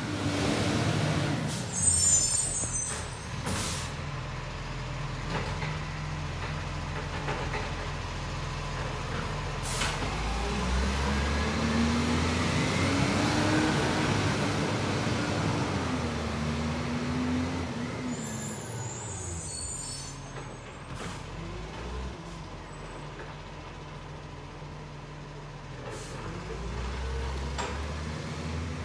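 Diesel garbage truck driving along the street, its engine pitch rising and falling as it pulls away and slows. Short air-brake hisses come about two seconds in and again a little past halfway.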